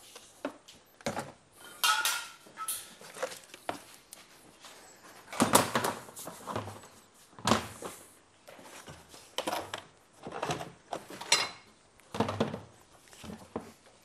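Nissan 180SX tail lights and plastic trim pieces knocking and clattering as they are handled and dropped into a bin: a string of irregular knocks and rattles, a few of them sharp and loud.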